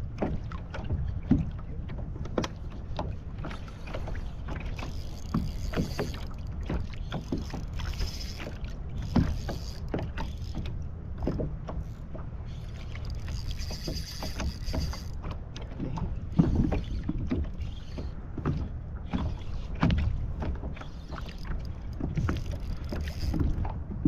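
Fishing kayak on open water: a steady low rumble of wind and water against the hull with many small knocks and clicks, and now and then a few seconds of high whirring from a spinning reel as a fish is played on the rod.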